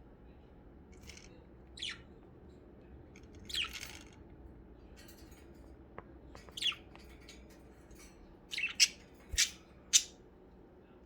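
Pet budgerigars giving short, high chirps that sweep downward in pitch. They are scattered at first, then four louder calls come in quick succession near the end.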